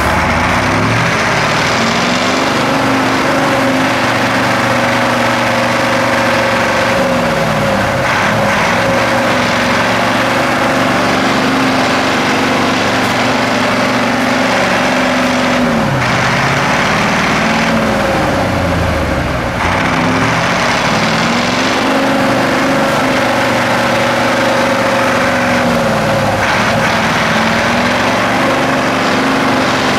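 Truck's diesel engine working hard in off-road terrain. Its pitch drops and climbs back several times as the revs fall and rise again.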